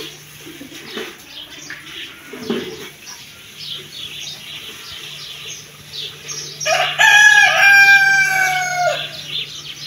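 A rooster crows once, a loud held call of about two seconds that starts roughly seven seconds in and drops in pitch at the end. Small birds chirp throughout.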